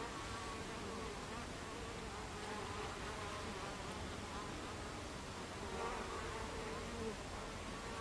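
Buckfast honeybees buzzing at the hive entrance: a steady hum, with single bees' wingbeat tones wavering up and down as they fly close past, swelling a little after the middle.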